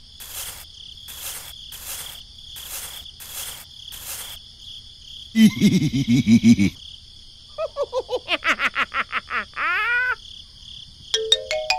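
A background track of insects: a steady high trill with regular chirps about twice a second. About halfway through, cartoon sound effects come in: a short, loud warbling call, then a quick run of falling pitched notes ending in an upward slide.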